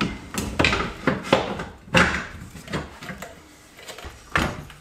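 Irregular metal clunks and knocks as a stock rear shock assembly is worked into a 2015 Subaru WRX's rear suspension, squeezed past the dropped lower control arm; the loudest knock comes about two seconds in and another shortly before the end.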